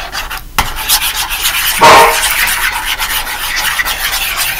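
Irregular scratchy rubbing strokes across a tablet's touchscreen, with one louder stroke about two seconds in.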